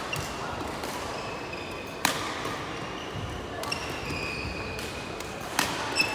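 Badminton rally: several sharp cracks of rackets striking the shuttlecock, about two seconds in and again near the end. Brief high squeaks of players' shoes on the wooden court floor come in between.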